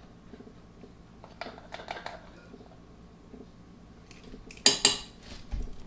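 A metal teaspoon tipping cinnamon into a stainless steel mixing bowl. Soft clicks and scrapes of the spoon and spice jar come first, then a quick run of sharp taps of the spoon against the bowl a little over three-quarters of the way through.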